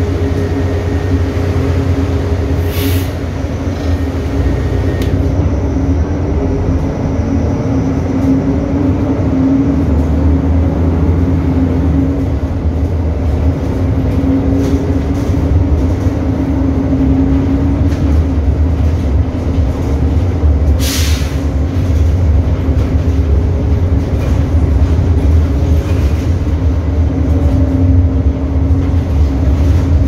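Mercedes-Benz OM 926 LA inline six-cylinder Euro V diesel engine of a city bus running with a steady drone. Two short hisses of air cut through it, about 3 seconds in and again about 21 seconds in.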